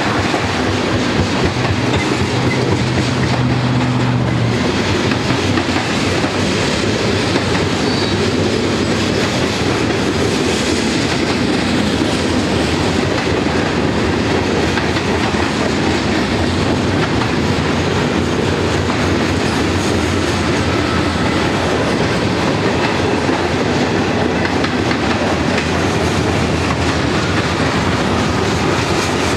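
Freight cars of a mixed manifest train, tank cars and boxcars, rolling past at close range: a steady rumble with the wheels clacking continuously over the rails.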